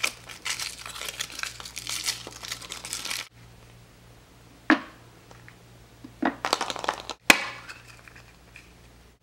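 Foil wrapper crinkling for about three seconds as it is peeled off a chocolate egg. Then comes a single sharp crack, and later a run of clicks and crinkles ending in a sharp click, as the chocolate shell is broken and the plastic toy capsule inside is pulled open.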